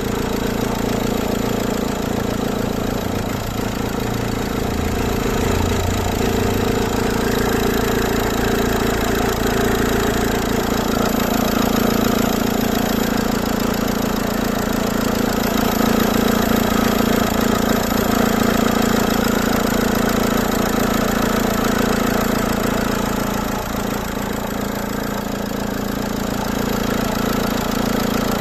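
Dacia Lodgy engine idling steadily with a fast, even ticking running through it, a strange noise that the owner suspects comes from a failing timing-belt or accessory-belt tensioner.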